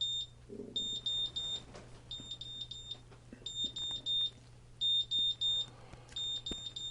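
GZAIR SA-V1000 carbon monoxide detector's buzzer sounding its alarm: high-pitched beeps in groups of three, a new group about every 1.3 seconds. The alarm signals a carbon monoxide reading above 200 ppm.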